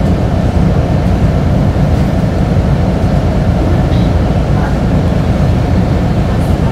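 Steady low rumble of a moving TransJakarta bus heard from inside the cabin: engine and road noise.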